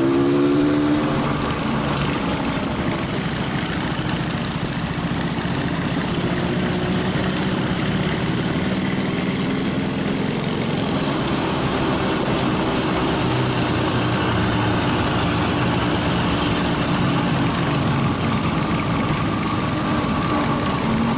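Motorcycle engine running; its pitch rises over the first second as it speeds up, then it settles into steady running with slight changes in speed.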